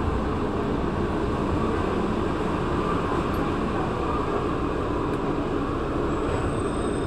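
Santiago Metro NS-2004 rubber-tyred train running, heard from the driver's cab as a steady rumble and hiss of the moving train. A faint high whine comes in near the end as the train enters a tunnel.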